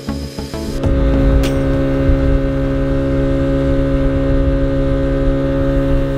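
Motorboat engine running steadily at a constant pitch over a low rumble, coming in about a second in.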